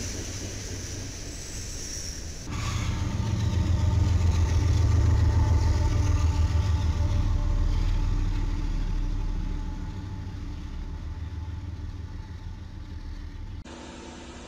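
Freight cars rolling past on the rails. About two and a half seconds in, the sound cuts to Union Pacific diesel locomotives passing close at speed: a loud low engine rumble that builds and then fades. Near the end it cuts to a much quieter steady hum.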